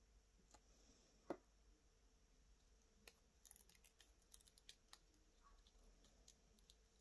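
Faint snips and crackle of small scissors cutting the plastic carrier sheet of heat transfer vinyl: a soft knock about a second in, then a run of quick small clicks from about three to five seconds in.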